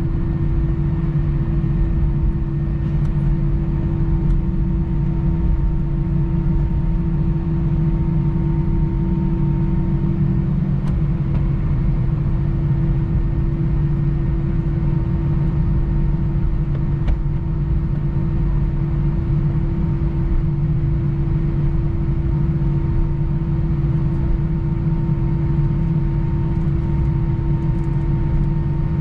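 Airbus A320-214 cabin noise from a window seat: a steady low rumble of its CFM56 engines and airframe, with a steady hum and a fainter higher tone running through it.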